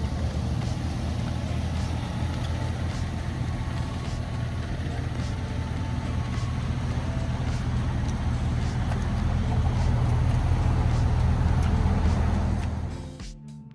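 A vehicle engine running with a steady low drone. It grows a little louder for a few seconds, then fades out near the end.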